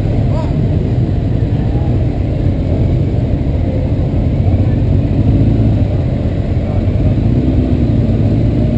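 Motorcycle running at a steady speed on the road, a dense low rumble that holds without a break.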